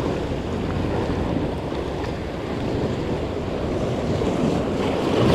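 Sea surf washing against a rocky shoreline, with wind buffeting the microphone; the wash swells a little near the end.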